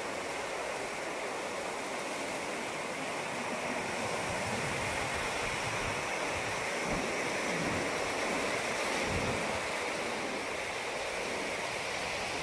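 Ocean surf washing steadily onto the shore, growing a little louder about a third of the way in, with low rumbles of wind on the microphone.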